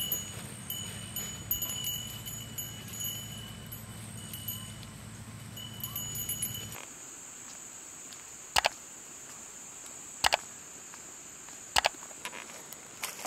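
Insects trilling in steady high tones that break off and resume, over a low outdoor hum. After a change, a steadier high insect drone runs on, with three sharp footsteps on the road about a second and a half apart.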